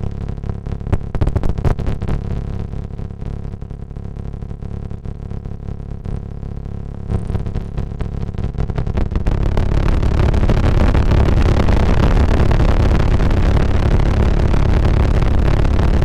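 Sound of Shadows PT2399 digital delay module putting out a low, rough electronic rumble with a buzzing grain. About nine seconds in it swells into a louder, dense noisy roar.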